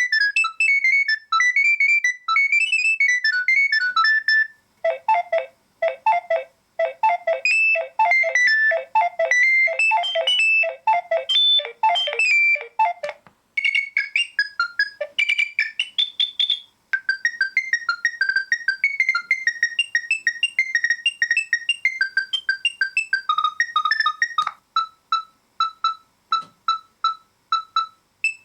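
Nokia 7250 mobile phone ringtones played one after another: about five short electronic melodies in turn, each switching abruptly to the next. The last is a run of evenly repeated beeps.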